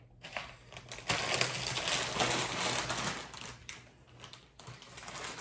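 Tortilla chips crunching and crackling in a rapid, dense patter that starts about a second in and thins out after about three and a half seconds.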